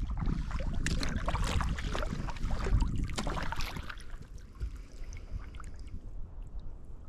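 Kayak paddle strokes splashing and dripping in the lake, with wind rumbling on the microphone. The splashing eases off about four seconds in.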